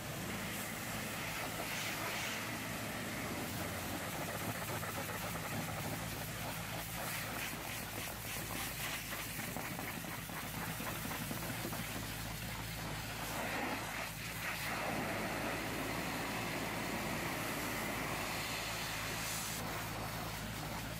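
High-pressure hot-water jet hissing steadily as it sprays the minibus's bodywork, over a steady low machine hum.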